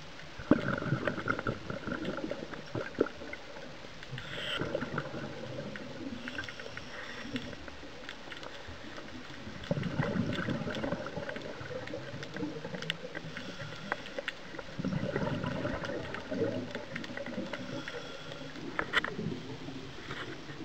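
Scuba diver breathing through a regulator underwater: several seconds of bubbling gurgle from each exhalation, coming about every five seconds, with shorter hissing inhalations between them.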